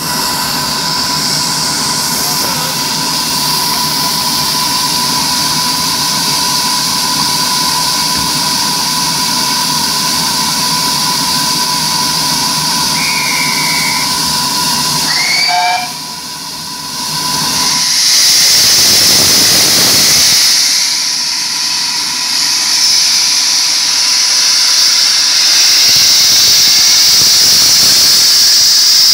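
GWR pannier tank locomotive No. 6430 hissing loudly with steam as it stands and then pulls away with its train, the steam growing louder and brighter once it starts moving. A brief high whistle sounds about halfway through.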